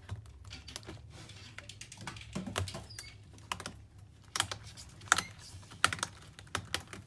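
Sharp plastic clicks and snaps as a pry tool works an HP EliteBook 840 G3 keyboard loose from its retaining clips, with the keys rattling under the hands. The loudest snaps come in the second half.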